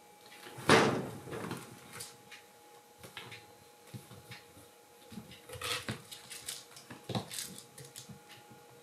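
Kittens playing and pouncing at a curtain and scratching post. There is a loud thump about a second in, then scattered light knocks, scratching and rustling.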